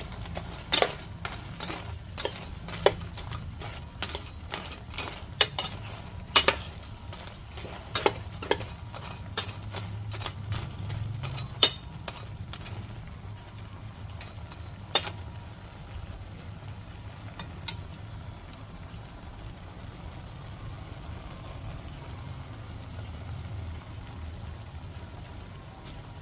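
Kitchenware clicking and knocking, utensils against dishes: frequent sharp clicks for the first dozen seconds, then only a couple more, over a steady low hum.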